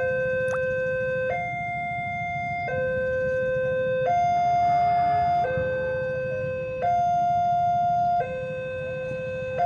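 Two-tone electronic warning siren alternating steadily between a low and a high note, each held about a second and a half, the warning signal of a railway level crossing, over a low steady rumble.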